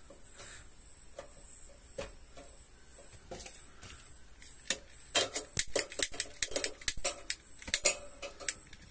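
Gas camping stove being lit: a rapid run of sharp clicks from a long stove lighter held at the burner, starting about halfway through, until the burner catches. A steady high chirring goes on behind.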